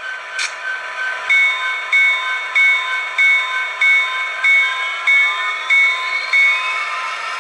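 Sound decoder of an HO scale Athearn Genesis SD70 model locomotive playing through its small onboard speaker. A short air hiss comes near the start, then the locomotive bell rings steadily, about once every 0.6 s, while the diesel engine sound rises in pitch in the second half as the model gets moving.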